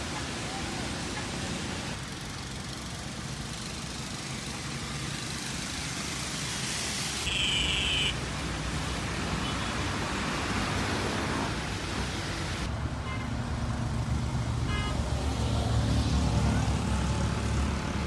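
Street traffic noise: vehicle engines and tyre hiss, in a few short segments that change abruptly. A brief high-pitched tone comes about seven seconds in, and a low engine rumble grows louder near the end.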